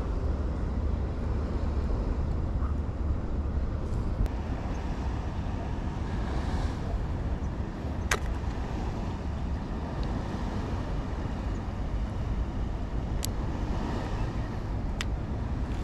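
A few sharp clicks, about four, spread across several seconds as pliers work a hook out of a caught false trevally's mouth, over a steady low rumble.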